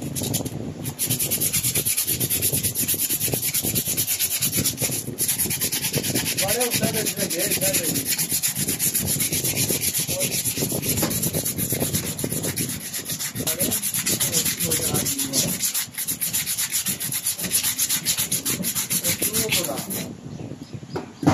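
Sandpaper scraping back and forth in quick strokes over the rusted rotor (armature) of a starter motor, scouring off rust and dirt. There are brief pauses about five seconds in and near sixteen seconds, and the scraping stops just before the end.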